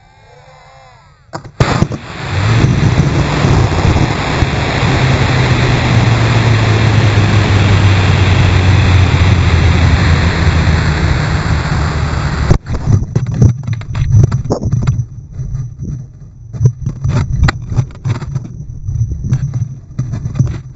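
Model rocket motor igniting with a sharp crack and burning with a loud steady rush, heard from a camera riding on the rocket and slowed to half speed. The rush cuts off suddenly near the two-thirds mark, at motor burnout, leaving gusty wind buffeting the microphone.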